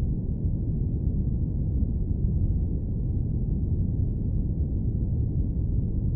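Airplane cabin noise: a steady, deep, even rumble with no changes.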